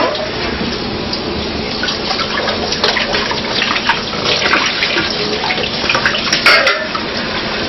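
Kitchen tap running cold water into the sink, a steady gush and splash for rinsing. A few small knocks of things in the sink, with a louder clatter about six and a half seconds in.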